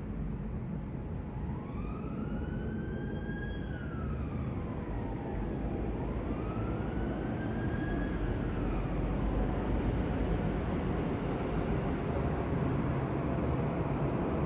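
Boeing 787-9 airliner's jet engines rumbling overhead, a steady roar that slowly grows louder. A distant siren wails up and down twice during the first half.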